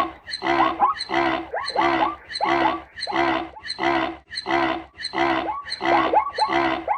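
Zebra calling with a rapid run of harsh, barking brays, about two a second, repeating steadily.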